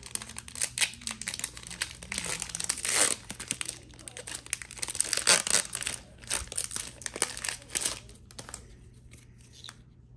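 Foil wrapper of a Pokémon Evolutions booster pack being crinkled and torn open by hand, in dense irregular crackles that thin out to a few scattered rustles after about eight seconds.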